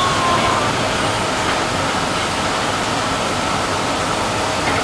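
Inside a CSR Qingdao Sifang SFM04 subway car running into a station: a steady rushing rumble of wheels on rail, with a faint steady whine over it.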